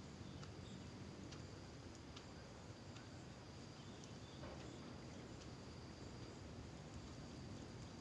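Faint outdoor ambience: a steady, high-pitched insect trill with a few short, scattered bird chirps.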